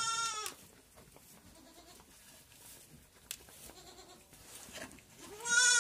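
Goat bleating: one call at the very start and another near the end, each under a second long.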